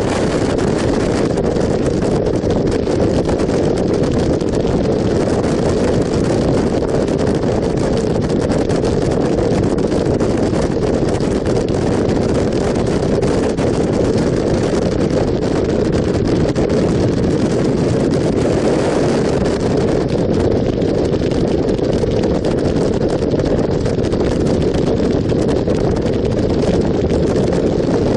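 Steady wind rushing over the microphone of a motorcycle riding at road speed, mixed with the bike's engine and tyre noise, with no change in pace.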